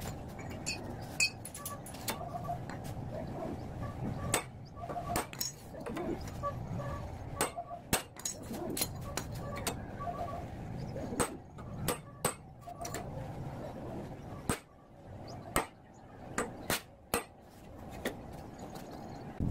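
Metal hand tools, including locking pliers, clinking and knocking against the steel-tube frame and the floor as parts are clamped in place: a string of irregular sharp taps and clicks.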